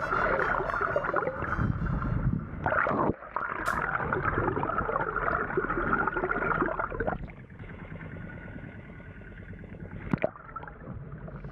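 Muffled, dense rushing and gurgling of water heard through a camera held underwater beside a boat hull. It drops to a quieter wash about seven seconds in, with a short splash about ten seconds in as the camera breaks the surface.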